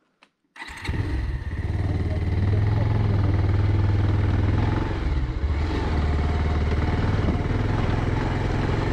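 Motorcycle engine running steadily while riding along a rough gravel track; the sound cuts in about half a second in.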